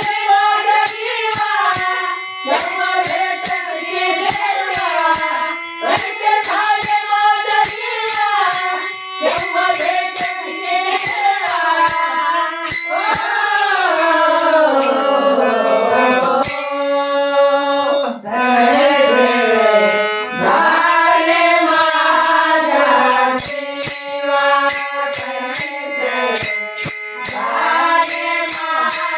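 A woman singing a Marathi abhang, a devotional song, in a wavering melodic line, over hand percussion that keeps a steady quick beat.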